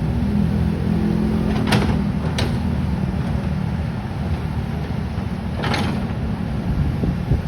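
Kobelco excavator's diesel engine running steadily, with two sharp knocks about two seconds in and a brief rush of noise about six seconds in.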